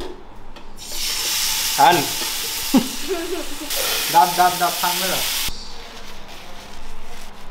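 Chicken sizzling in a hot grill pan on a gas stove while a spatula presses it down. The sizzle starts about a second in and cuts off suddenly after about five and a half seconds.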